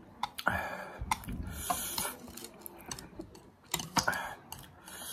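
Close-up eating sounds of spicy noodles: wet chewing and short noisy mouth sounds, broken by sharp clicks of chopsticks against a plate.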